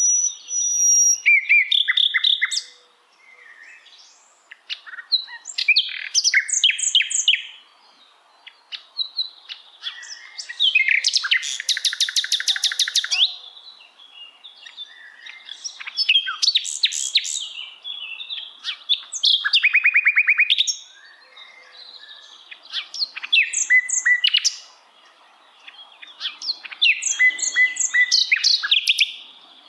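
A sikatan londo (common nightingale) singing in about seven loud phrases separated by short pauses. The phrases mix sharp rapid notes with fast repeated trills.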